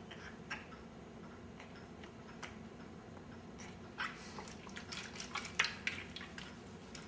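Baby panting like a dog in short, quick breaths: a few faint puffs at first, then a rapid run of breaths from about four seconds in.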